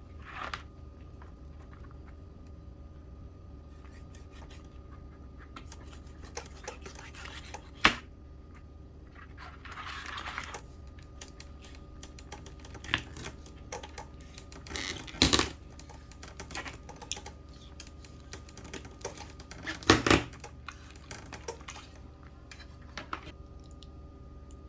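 Scattered sharp clicks, knocks and scraping from a lobster being handled and cut up, the loudest knocks about 8, 15 and 20 seconds in, over a steady low hum.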